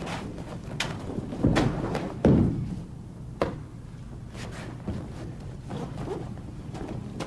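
Irregular thuds and knocks of bodies falling and feet stepping on a training mat during aikido throws, the heaviest thud a little over two seconds in.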